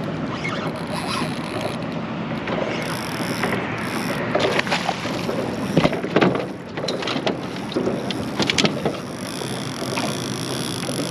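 Fishing reel being worked, a steady mechanical clicking noise, broken from about four to nine seconds in by a run of sharp, loud knocks and clatters.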